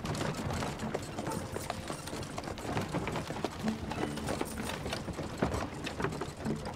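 Horse hooves clip-clopping at a walk while horse-drawn wooden carts and carriages roll away, their wheels and frames rattling in many irregular clicks.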